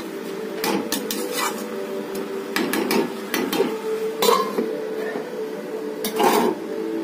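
A metal spatula scraping and stirring chunks of potato and aubergine in a steel kadhai, in short irregular strokes. About six seconds in, a steel lid is set down on the pan. A steady low hum runs underneath.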